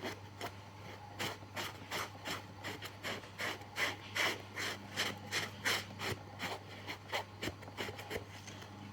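Rhythmic hand scraping strokes, like a rasp or coarse sandpaper roughing a surface, about two to three strokes a second. They start about a second in and trail off near the end.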